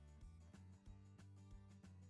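Faint background music with a steady beat.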